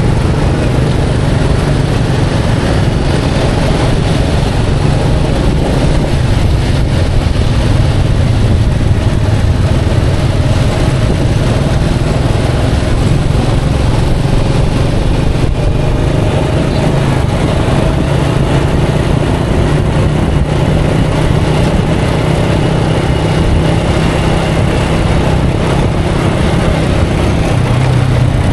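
Motor vehicle engines running in street traffic: a constant low engine hum with road noise over it.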